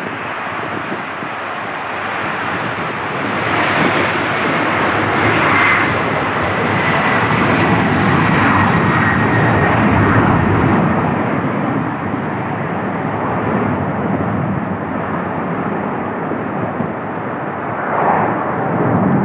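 Four jet engines of a Boeing 747-400 freighter at takeoff power as it lifts off and climbs away: a steady roar that builds over the first few seconds and eases slightly after about twelve seconds. A faint high whine in the roar drops slightly in pitch.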